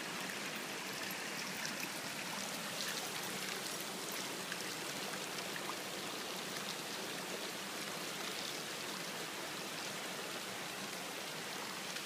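Shallow creek water running steadily over rock ledges, with a few faint splashes.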